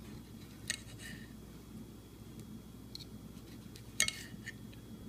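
A table knife and fork cutting through a sausage on a ceramic plate, the metal clicking and scraping against the plate: a few light clicks, the loudest about four seconds in.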